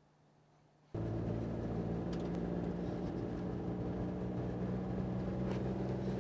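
Car cabin noise while driving: a steady engine hum with road and tyre noise, starting abruptly about a second in, with a couple of faint ticks.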